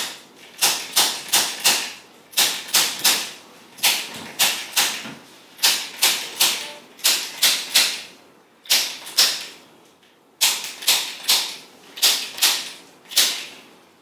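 Handheld spring-loaded chiropractic adjusting instrument (activator) firing against the back, giving sharp clicks about three a second in short runs with brief pauses.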